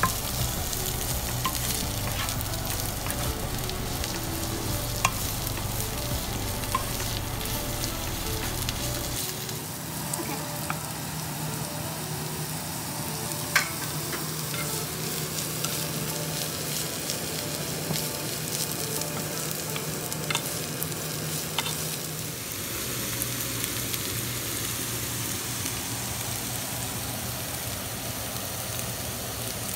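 Sliced carrots, onion and green bell pepper sizzling in oil in a frying pan as they are stir-fried with a wooden spoon, a steady hiss broken by a few light clicks, the sharpest about halfway through.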